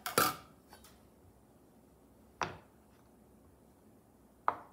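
Kitchen knife knocking on a cutting board while cubing a stick of butter: a few separate sharp knocks, the loudest just as it begins, then one about every two seconds.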